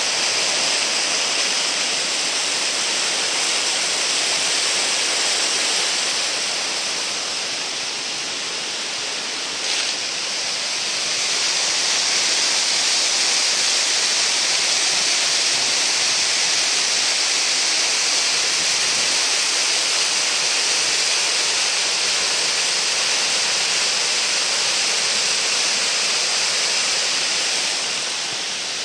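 Mountain creek pouring down a rocky waterfall: a steady, loud rush of falling water that dips a little about a quarter of the way in, swells again, and eases off near the end.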